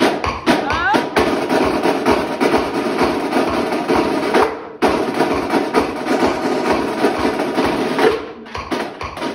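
A drumline of marching snare drums and bass drums playing a fast, loud passage of dense rapid strokes. It breaks off briefly just before five seconds in, and the strokes thin out near the end.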